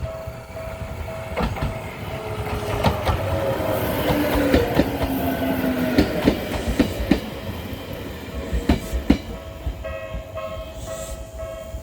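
Bessho Line 1000-series two-car electric train passing over a level crossing: a rising rush of running noise, a tone that slides down in pitch as it goes by, and a string of sharp wheel clacks over the rail joints. A level-crossing warning bell rings in a steady repeating pattern beneath it, standing out again as the train moves off.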